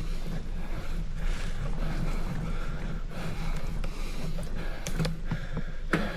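Steady low rumble of a bicycle ride, with wind on the microphone and tyre noise, broken by a few sharp clicks about five seconds in and a louder one near the end.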